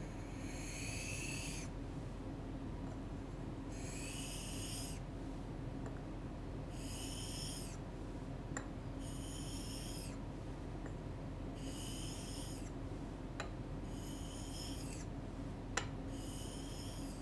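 Steel Japanese plane (kanna) blade held flat and rubbed on a wet sharpening stone to flatten its back (ura-oshi): a gritty, high-pitched scraping in about seven strokes, each about a second long and two to three seconds apart. A few light clicks fall between strokes.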